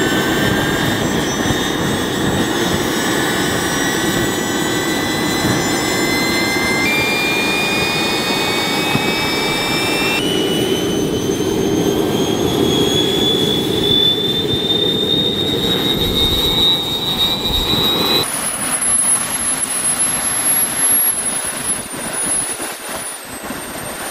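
Three small model turbojet engines on a go-kart running: a steady jet roar with turbine whines that climb in pitch in small steps. About 18 seconds in, it changes to a thinner, high-pitched whine with less roar. Not all the engines come up to power, with fire and sputtering but no thrust, from a fuel restriction where one line feeds three engines through a tiny filter.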